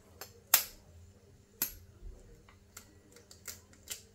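Sharp clicks and taps of eggshells being cracked and handled while eggs are broken for a cake mix. The loudest tap is about half a second in, a second comes about a second later, and three fainter ticks follow near the end.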